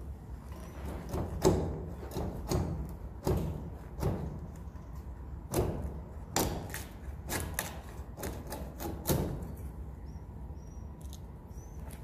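Irregular knocks and thuds of someone moving about and handling things among the wooden rafters of a swiftlet house, loudest about a second and a half in and again in a cluster in the middle. Near the end there are a few faint high chirps from swiftlets.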